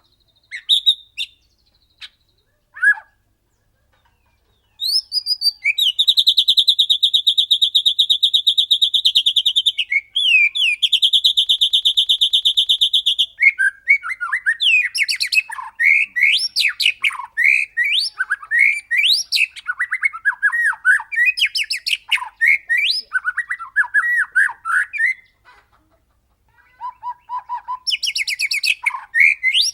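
White-rumped shama (murai batu) singing: a few short notes, then two long, rapid rolling trills a few seconds each, followed by a run of varied quick whistled phrases and another rolling trill near the end.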